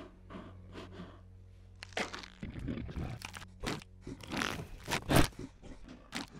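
Werewolf transformation sound effects: a run of wet crunching and cracking noises mixed with strained grunts. They build from about two seconds in, and the loudest crack comes near the end.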